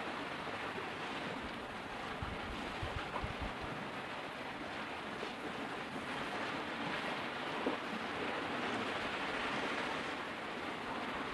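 Steady rushing outdoor noise with no distinct events, like wind or running water.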